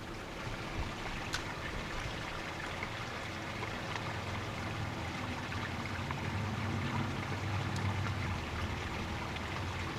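Water lapping and trickling against a boat hull, a steady gentle sound, with a faint low hum in the latter half.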